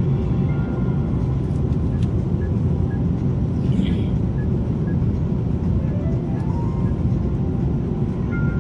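Steady low roar of an airliner cabin in flight, jet engine and airflow noise heard through the fuselage. Faint music plays over it, with a short rising run of notes about six seconds in.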